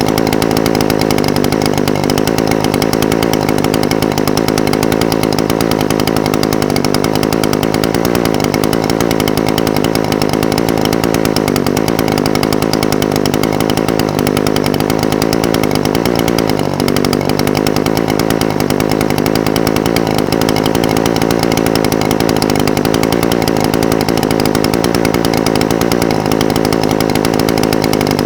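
Echo SRM-420TES brush cutter's two-stroke engine idling steadily, its pitch wavering slightly now and then.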